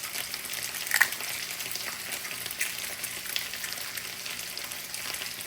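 Potatoes frying in hot oil in a pan, a steady sizzle with fine crackling. A sharp tap about a second in.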